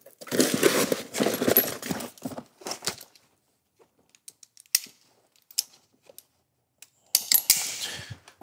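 Rummaging in a tool bag to get a cordless drill out: fabric rustling and metal gear clinking. Then a few scattered clicks, and more rustling about seven seconds in.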